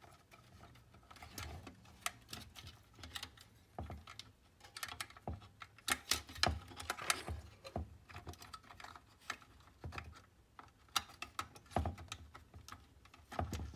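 Irregular light clicks and taps of a small focus motor, its wires and the sheet-metal frame being handled and seated inside an opened Kodak 760H carousel slide projector.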